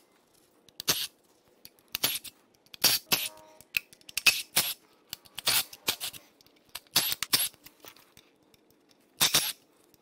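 Cordless ratchet run in short bursts, one or two a second, backing out the lower oil pan bolts, with a brief squeal about three seconds in.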